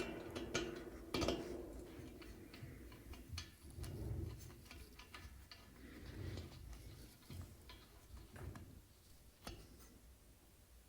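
Faint, irregular light metallic clicks and taps from small hardware being handled: a nut being fitted onto an M8 bolt by hand, with a few soft knocks of parts being set down.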